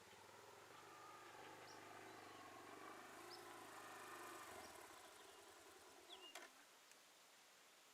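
Faint engine hum that rises slightly in pitch and then dies away about four and a half seconds in, with a few short bird chirps and a sharp click near the end.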